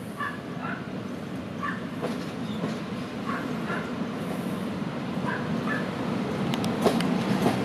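EP07 electric locomotive hauling a passenger train as it pulls in, its rumble growing steadily louder as it comes closer, with a few sharp clicks near the end. A dog barks repeatedly, in short pairs, through it.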